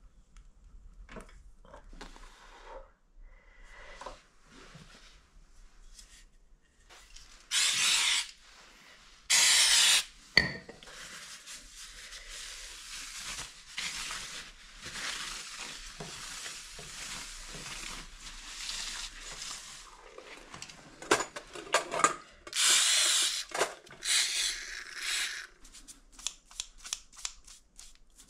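Hand work on a motorcycle's front brake. First come small clicks and scrapes while the caliper pistons are pushed back. Two loud hissing bursts of about a second each follow, then a long spell of a paper towel rubbing over the brake disc, broken by more hissing bursts, and near the end there is quick clinking of metal parts and a brush in a steel bowl.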